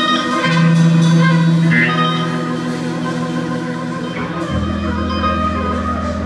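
Live instrumental surf rock band with electric and baritone guitars: long held notes and chords ringing out, with a low sustained chord coming in about four and a half seconds in and slowly fading as the song closes.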